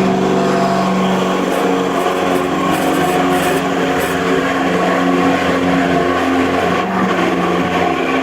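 Woodworking power tool running steadily with a loud motor hum that shifts in pitch a few times.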